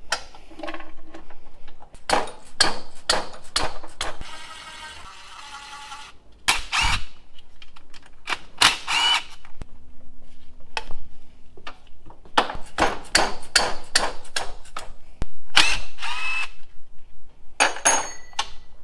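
Wrench and ratchet clicking and clinking on steel cylinder base nuts as they are worked loose on a Honda CR500 two-stroke engine, with a rapid run of ratchet clicks and several sharp metallic clinks that ring briefly.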